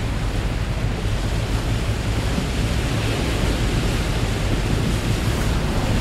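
Steady rush of wind and water with a low rumble underneath, heard alongside a moving ship.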